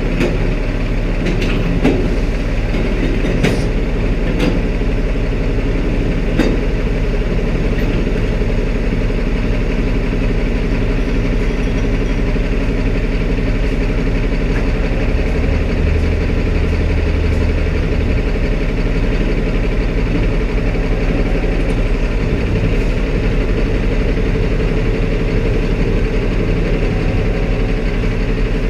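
Peterbilt semi truck's diesel engine idling steadily, with a few sharp metallic clicks or knocks in the first several seconds.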